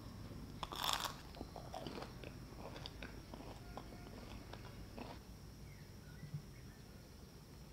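Crisp fried churros crunching: one loud crunch about a second in, then a scatter of smaller crackles and one more near the end.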